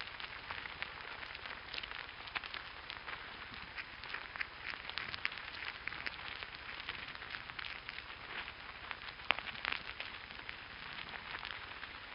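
Ants crawling over the surfaces of two piezo contact microphones stuck into an ant hill: a steady stream of tiny scratchy clicks, with one sharper click about three quarters of the way through.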